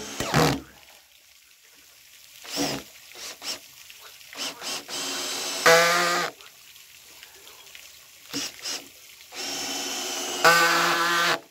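Cordless drill-driver running twice, driving screws into joist hangers, each run under two seconds and louder near its end as the screw seats, about five and ten seconds in. A few short knocks from handling the timber and hangers come between them.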